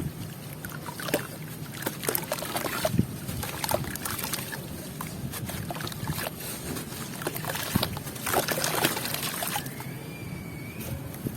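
Sand and charcoal blocks being crumbled and handled: scattered gritty crackles and crunches over wind noise on the microphone.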